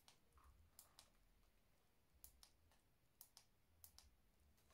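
Near silence: faint room tone with a few scattered, very brief faint clicks.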